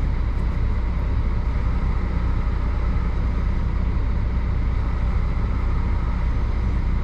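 Truck's diesel engine idling, a steady low rumble.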